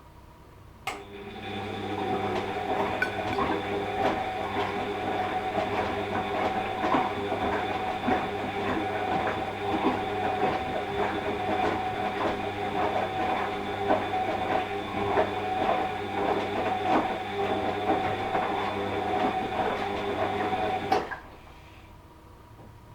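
Washing machine drum motor running through one turning stretch of the wash cycle: a steady electric hum with irregular knocks and clatter from the load tumbling. It starts with a click about a second in, runs for about twenty seconds, and cuts off suddenly near the end.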